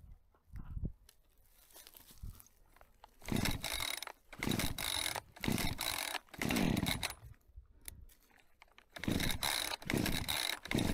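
Chainsaw revving in short bursts, the pitch falling off after each one, starting about three seconds in; it drops away for a second or so and picks up again near the end.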